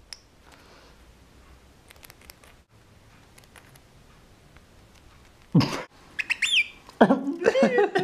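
Lovebird calling: after a few seconds of near quiet, loud sharp chirps and squawks start about halfway through, with high chirps sweeping downward and then a quick run of calls near the end.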